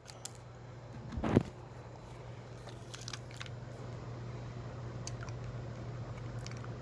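Faint mouth sounds of a hard honey candy drop being sucked, with a few small clicks of the candy against the teeth, over a steady low hum. One brief louder bump about a second and a half in.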